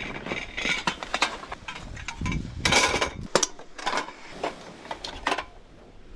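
Irregular clicks and clanks of camp cooking gear being handled and set up.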